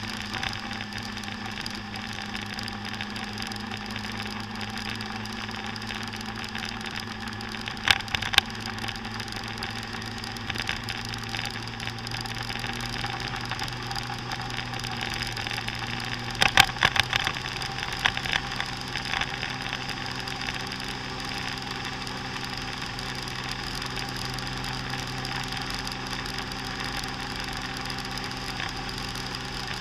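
Motor scooter engine running steadily at road speed, with a constant hum. Sharp clicks or rattles come about eight seconds in, then again in a cluster around sixteen to eighteen seconds in.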